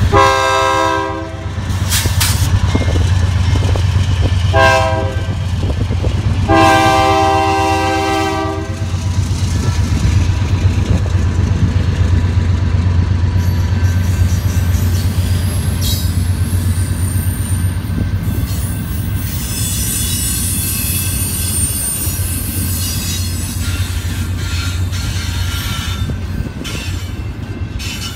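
A BNSF diesel freight locomotive sounds its horn three times: a blast of about a second, a short one, then a longer one of about two seconds, over a steady low engine rumble. The double-stack container cars then roll by with steady wheel-on-rail noise and a high wheel squeal about two-thirds of the way through.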